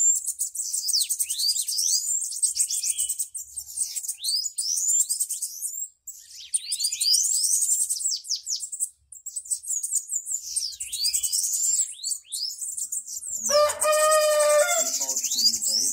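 Bananaquits (sibites) singing: repeated phrases of fast, high-pitched trills and sweeps with short pauses between them. A rooster crows once near the end.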